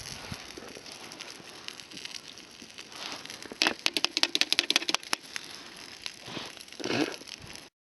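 A campfire crackling, with a quick run of sharp pops and clicks about three and a half to five seconds in and a louder rustling flare near the end.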